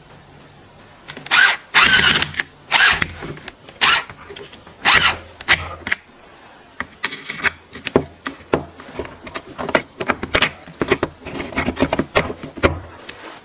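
Irregular clicks, knocks and scrapes of hard tool parts being handled and fitted together, with a busy run about a second in and another near the end.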